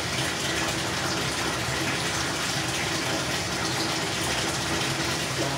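Steady rushing noise, even and unchanging, with a faint low hum beneath it.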